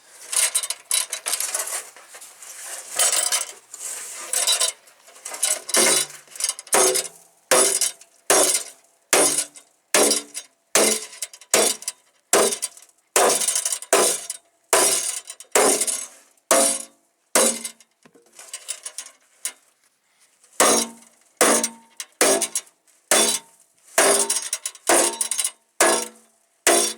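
Sledgehammer blows on a stainless steel truck fender, roughly one every three-quarters of a second, each a sharp metallic clang with a short ring, as a sharp dent and crease are beaten back out of the stiff metal. There is a brief lull about two-thirds of the way through.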